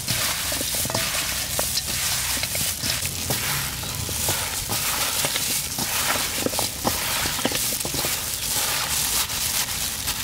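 Plastic-gloved hands mixing raw chicken wings with seasoning in a metal bowl: wet squishing of the meat and crinkling of the plastic gloves, with many small clicks and crackles.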